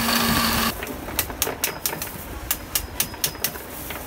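Electric countertop blender (Miyako) running with juice in its jug, cutting off under a second in. Then a run of sharp knocks, several a second in quick groups, as a knife spine whacks the back of a pomegranate half to knock the seeds out.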